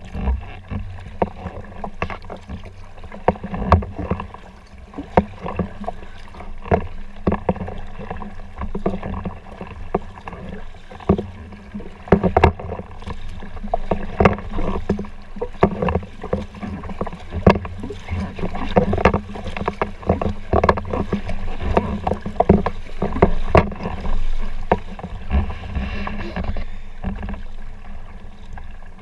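Kayak paddling: the paddle blades splash into the water in irregular strokes, one or two a second, over a steady low rumble.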